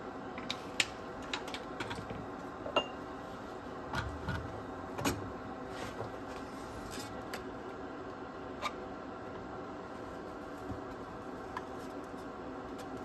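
Scattered small clicks and knocks of hand tools and small parts being handled at a workbench, busiest in the first five seconds and sparser after, over a steady low hum.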